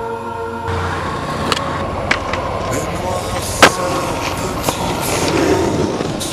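Skateboard wheels rolling on pavement, with several sharp clacks of the board on the ground; the loudest, a hard smack, comes a little past halfway.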